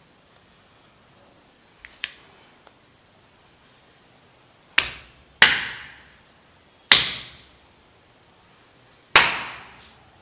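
Four loud, sharp bangs, made by hand to set off a robot's noise-detecting sensor, each dying away over about half a second in a small room; two fainter taps come about two seconds in.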